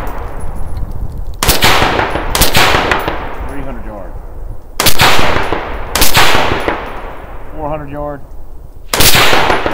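AR-15-style rifle firing 62-grain 5.56 rounds as single aimed shots, five in all. They come in two pairs about a second apart and then a last shot near the end, and each has a ringing echo tail.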